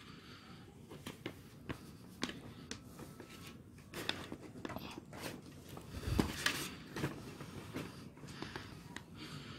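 Quiet handling noise: scattered small clicks and taps with some rustling as a plastic LED tube light casing and small tools are picked up and set down, the loudest knock about six seconds in.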